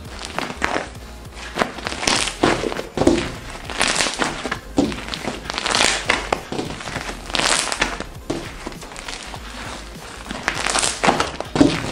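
Crunchy slime crackling and squishing in irregular bursts as hands knead, press and stretch it, over background music.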